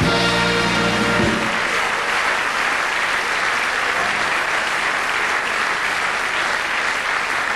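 Audience applause, steady and dense throughout, opening with about a second of held musical chord from the band.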